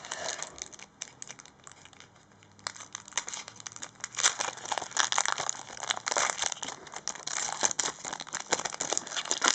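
Foil wrapper of a trading-card packet crinkling and tearing as it is pulled open by hand. Faint at first, it becomes loud, busy crinkling from about three seconds in.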